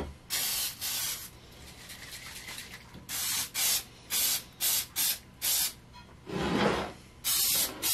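Aerosol cooking spray hissing from the can's nozzle to grease a loaf pan: one long spray of about a second, then a string of short spurts.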